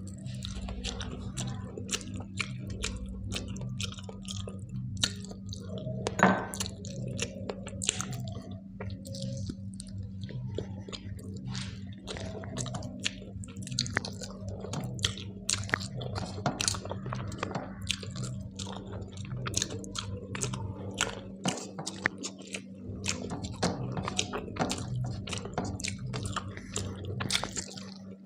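Close-miked chewing of a rice-and-curry meal: wet mouth clicks and smacks scattered irregularly throughout, over a steady low hum.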